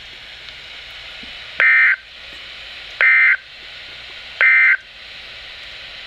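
NOAA weather radio sending the EAS/SAME end-of-message code through a Midland 74-210's speaker: three short, identical digital data bursts about a second and a half apart over steady radio hiss. It marks the end of the severe thunderstorm warning broadcast.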